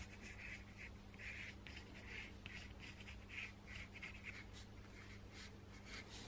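Pencil scratching faintly on cardboard as it traces around the edge of a paper wing template, in a string of short, quick strokes following the scalloped feather outline.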